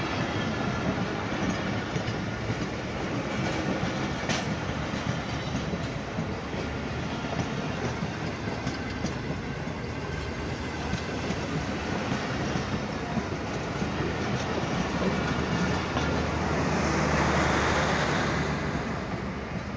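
Passenger coaches of a fast train rolling past close by: a steady rumble with the clickety-clack of wheels over rail joints. It grows louder near the end as the power van, the last vehicle, goes by.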